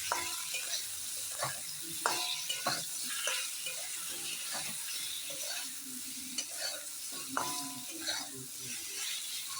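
Mango pieces with turmeric and salt sizzling as they fry in a pan, with a steady hiss, while a spatula stirs them, scraping and knocking against the pan; a few of the knocks ring briefly.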